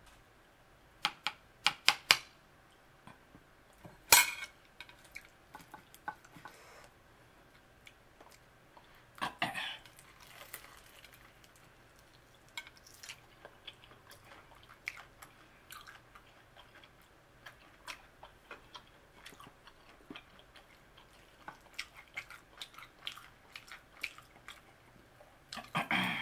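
Close-up eating sounds of fried chicken wings: irregular chewing and mouth smacks, a spoon clinking against a bowl of barbecue sauce, and a wing being pulled apart by hand. The sharpest clicks come in a cluster a second or two in and again about four seconds in.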